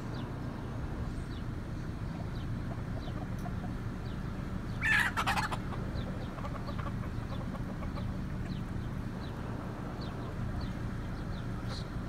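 Free-roaming chickens and roosters, with one loud, short call about five seconds in. Faint short high chirps recur throughout over a steady low background rumble.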